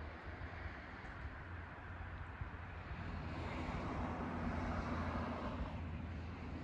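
A car passing by, its engine and tyre noise swelling about halfway through and easing off near the end, over a steady low hum.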